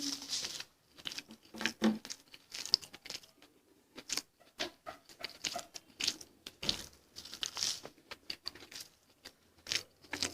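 Close-miked eating sounds: irregular crisp crackles and crinkles as a fried pakoda is broken and chewed.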